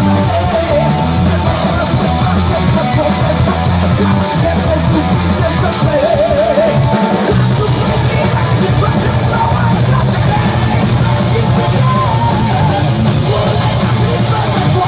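A live rock band playing loud: electric guitars, bass and drums, with a woman singing into a microphone over the band.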